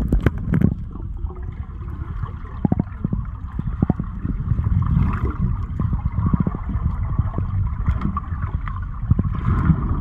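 Muffled underwater sound of a swimming pool picked up by a submerged camera: a dense low rumble of moving water with gurgling and scattered small clicks as a swimmer moves past.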